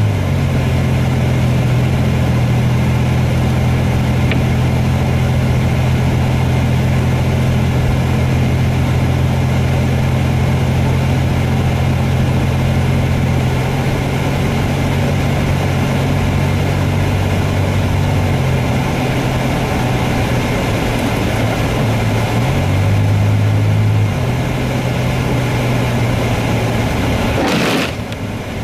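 Car cabin on a slushy snow-covered highway: engine and tyre noise run steadily, the low engine drone shifting in pitch a few times. Near the end, slush thrown up by traffic hits the windshield in a sudden splash.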